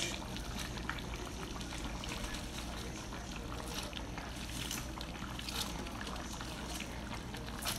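Ham and smoked sausage simmering in broth in a large aluminium pot, a steady bubbling, as cabbage leaves are dropped in with a few soft rustles, over a steady low hum.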